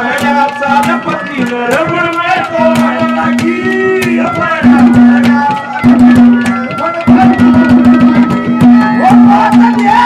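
Haryanvi folk ragni music: fast hand-drum strokes under a wavering melodic lead and a held drone note that breaks off and comes back several times.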